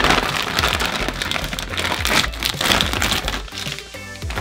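Crinkling and crackling of snack packaging being handled, easing off near the end, over background music with a steady bass line.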